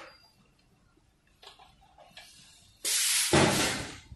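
Compressed air exhausting with a loud hiss for about a second near the end, as the pneumatic cylinders of a manual clip and spring pin assembly machine cycle. Before it come a few light clicks of parts being set into the jig.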